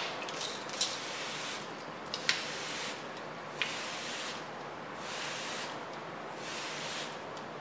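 Water sprayer misting water onto a motorcycle saddlebag in about five short hissing bursts, with a few sharp clicks between them. This is a water-beading test of a freshly applied ceramic (glass) coating.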